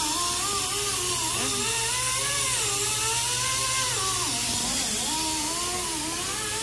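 A power tool's motor running, its pitch wavering slowly up and down over a steady low hum.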